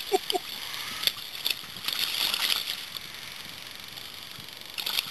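Water splashing and sloshing in the shallows as a hooked snook thrashes while being landed by hand, with the biggest splash about two seconds in and another near the end.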